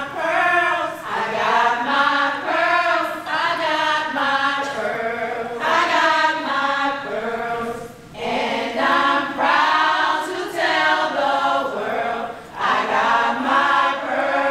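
A group of women singing together without accompaniment, in unison and in phrases, with short breaks between phrases.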